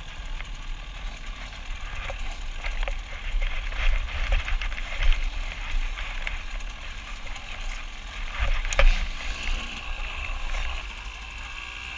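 Off-road motorcycle ridden over a rough trail: a steady low wind rumble on the microphone, with repeated knocks and rattles from the bike. The loudest is a sharp knock nearly nine seconds in.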